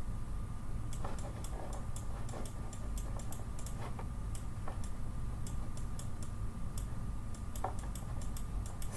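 Light, irregular clicking from working a computer's mouse and keys, about two or three clicks a second, over a steady low hum.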